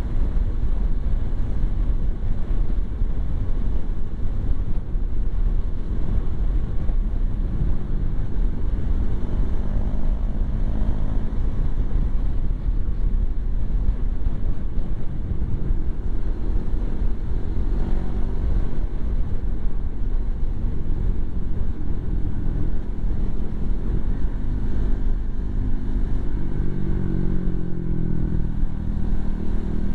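Motorcycle being ridden: wind rushing over the microphone with the engine running underneath, its pitch rising near the end as it speeds up.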